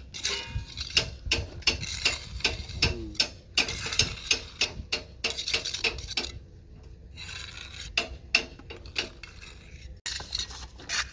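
Metal hand tool scraping and clinking, irregular strokes several times a second, with a quieter stretch about six seconds in.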